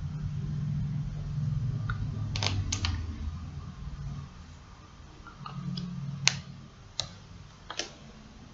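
Handling noise close to the microphone: a low rumble with several sharp plastic-sounding clicks and taps, three in quick succession about two and a half seconds in and three more, spaced about a second apart, in the second half.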